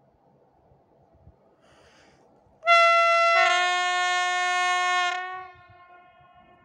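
Electric train's air horn sounding for about two and a half seconds. It starts on a single high tone, a lower tone joins it about half a second later, and the two are held together as a chord before cutting off and dying away briefly.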